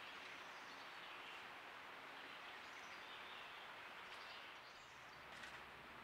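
Faint woodland ambience picked up by a trail camera's microphone: a steady soft hiss with a few faint, high bird chirps.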